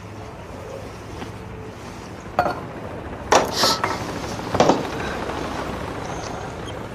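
Glasses and tableware clinking and knocking a few times, about two and a half, three and a half and four and a half seconds in, as drinks are taken after a toast.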